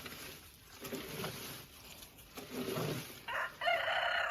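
A rooster crowing: a loud, harsh call that starts about three seconds in and carries on.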